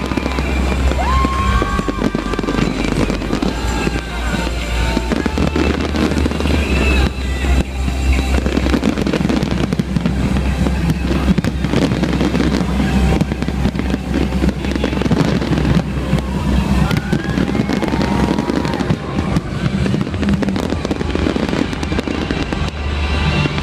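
Large fireworks display: dense, continuous crackling and bangs from many bursting shells. A steady, bass-heavy music soundtrack plays underneath.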